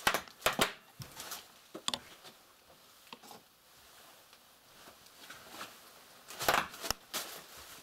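Bubble-wrap packaging being burst: sharp pops, several quick ones in the first two seconds and a louder cluster near the end.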